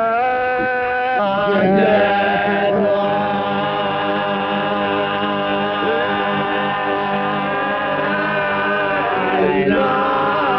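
Unaccompanied choir of voices singing a slow chant in long held notes.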